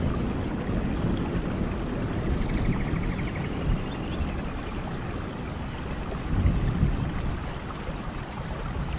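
Steady rain with water running, with low rumbling swells beneath. Over it, an animal gives short runs of three or four quick high chirps, twice, about four seconds apart.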